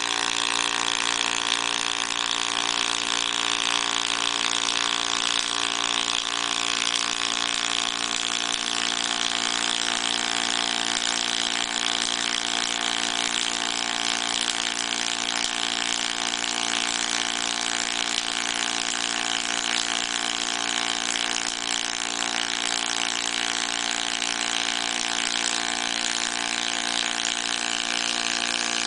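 Pulsed MIG welding arc from a MAHE sy-MIG 420 CWK welding machine running 1.2 mm metal-powder flux-cored wire on steel: a steady, rapid buzz with a constant hum over it.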